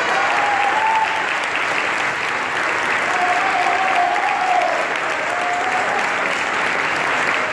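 Audience applauding steadily, a dense sustained clapping, with a few short wavering tones rising over it.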